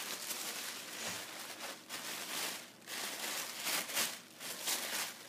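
Tissue paper rustling and crinkling as it is pulled open by hand to unwrap a gift, in a run of uneven rustles.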